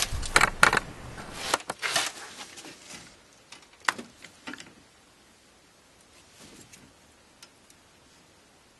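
Metal clicks and scrapes from a brake caliper piston wind-back tool being fitted to a rear caliper and its threaded spindle turned by hand, screwing the piston back in. A cluster of clicks comes in the first two seconds and one sharp click about four seconds in, then only faint ticks.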